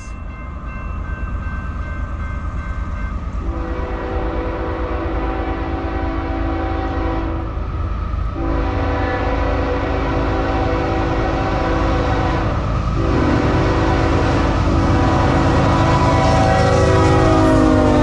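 Air horn of a CSX GE ES44AC-H locomotive leading a freight train, sounding a chord in long blasts with two brief breaks, over the rumble of the approaching engines and wheels. The rumble grows louder, and near the end the horn's pitch bends down as the locomotive passes.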